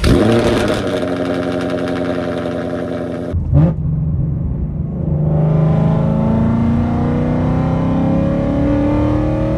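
2019 Ford Mustang GT's 5.0-litre V8 breathing through Kooks headers and a Borla ATAK cat-back exhaust: it comes in loud, runs at a steady fast idle, and gives a short rising rev about three and a half seconds in. From about five seconds on it pulls under load, its pitch climbing slowly.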